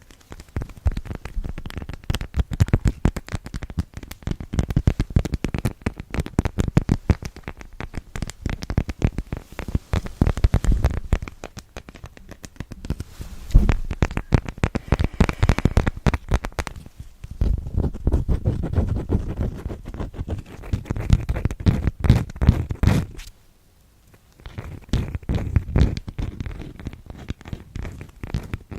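Close-miked ASMR tapping and scratching on props, most likely the wax cloth and cork pad: rapid fingertip and nail taps and scrapes in dense runs, with short dips and a pause of about a second and a half near the end.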